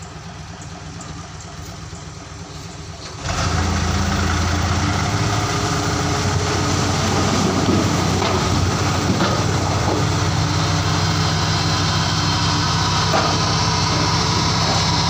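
Isuzu Giga dump truck's diesel engine idling, then revving up sharply about three seconds in and holding a steady higher speed as it drives the hydraulic hoist that tips the bed.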